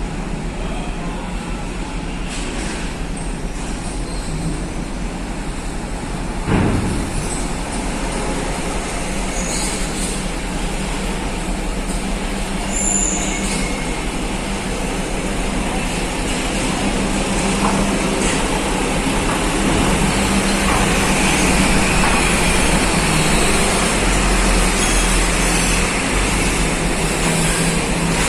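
Vehicle engines running on a ferry's car deck as cars are driven aboard, over a steady low hum. There is a single sharp thump about six and a half seconds in, and the noise grows louder through the second half.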